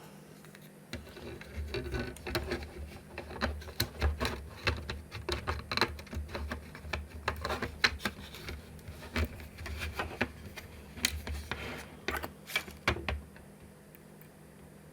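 Hard plastic parts being handled and pushed into place on a workbench: irregular clicks, taps and small knocks over a low rumble of handling noise, stopping about a second before the end.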